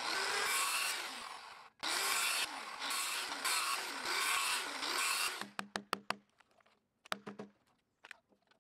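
Milwaukee circular saw cutting a series of shallow wafer cuts across a Western red cedar beam for a dado, in two runs with a brief break and the motor pitch wavering as each pass goes in. From about five and a half seconds, a string of sharp wooden knocks as the wafers are broken out.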